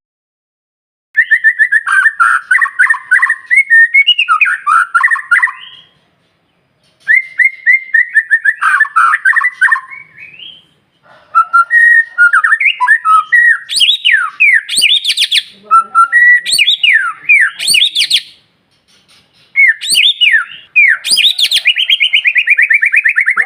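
White-rumped shama (murai batu) singing: loud phrases of varied whistles, slurred notes and fast trills in four bursts with short pauses between them, the last turning into a long rapid trill of repeated notes near the end.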